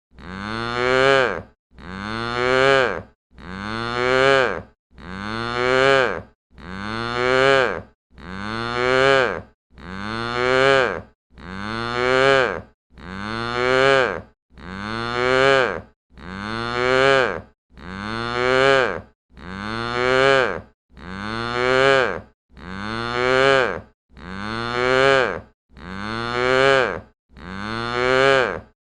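The same cow moo played again and again as a loop, about one call every 1.7 seconds. Each moo starts quiet, rises in pitch and loudness, and cuts off sharply at its loudest point.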